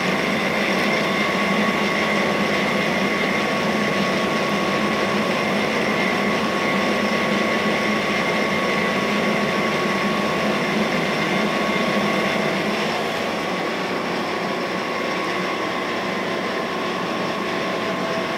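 Cam grinder running steadily, a constant hum with a faint steady whine from the spinning grinding wheel and its drive. The wheel is turning without cutting while the lobe is measured heel to toe. The level eases slightly about two-thirds of the way through.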